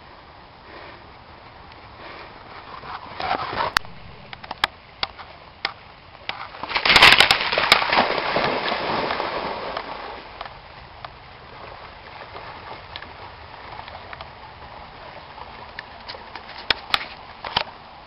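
Water splashing as a German Shepherd dog wades in a shallow creek. A loud rush of splashing comes about seven seconds in and dies away over a few seconds, with scattered sharp clicks before and after.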